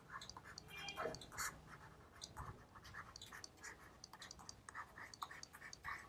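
Faint stylus scratching and tapping on a drawing tablet as handwriting is written, in short, irregular strokes.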